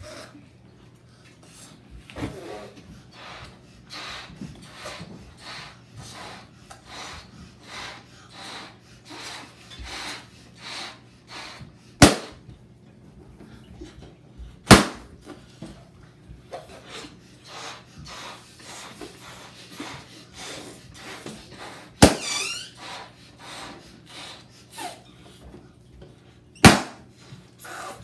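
Latex balloons popped with toothpicks: four sharp loud bangs spaced several seconds apart, two around the middle and two near the end. Between them come repeated puffs of breath blowing balloons up and the rustle of hands handling the rubber.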